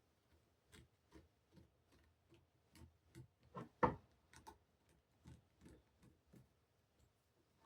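Faint, irregular small clicks and taps from handling hand tools and small engine parts, with one louder knock about four seconds in.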